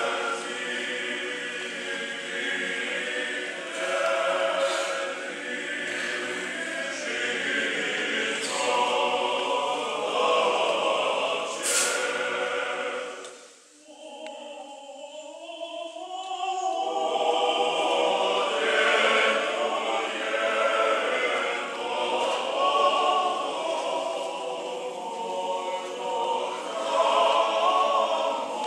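Orthodox church choir singing liturgical chant unaccompanied, in several voice parts. About halfway through the singing almost stops, then a few voices take it up again before the full choir returns.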